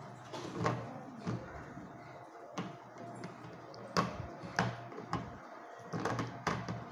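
Small plastic poster-colour jars knocking and clicking against each other and the tin case as they are handled, a string of sharp taps a second or so apart with a quick cluster near the end.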